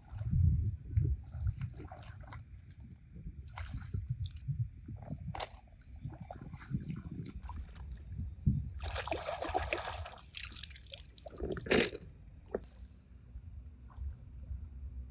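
Water sloshing and splashing in irregular bursts, with a longer splash about nine seconds in and a short sharp one near twelve seconds.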